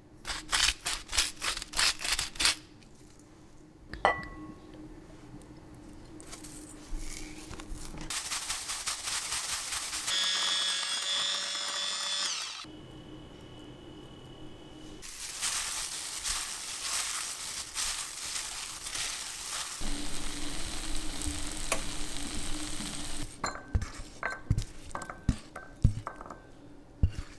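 Home kitchen preparation sounds in short cuts: clinks and knocks of utensils against a glass bowl, a stretch of steady sizzling noise, and sautéed zucchini slices being tipped from a pan into a glass bowl near the end.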